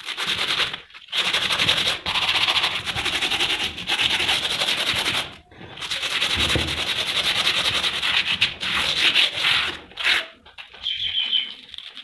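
Sandpaper rubbed by hand over a rusty iron pulley, stripping corrosion: a loud, scratchy rasping in long strokes with short breaks, turning quieter and choppier near the end.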